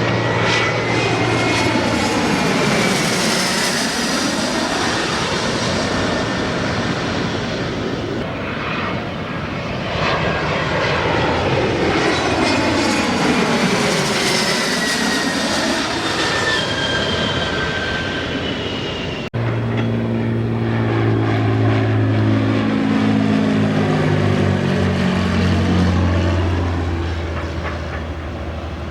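Jet aircraft arriving and passing close by, with engine whines that fall in pitch as they go past. About two-thirds of the way through there is an abrupt cut to another arriving aircraft with a deep, steady engine drone.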